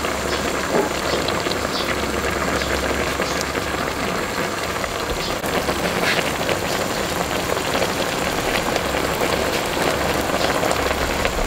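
Pot of taro stems, bitter melon and tomato boiling in broth: a steady bubbling hiss peppered with small pops, over a low hum.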